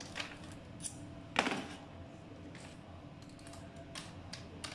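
Small metal screws and a screwdriver being handled on a workbench: a few light clicks and clinks, with one louder clatter about a second and a half in.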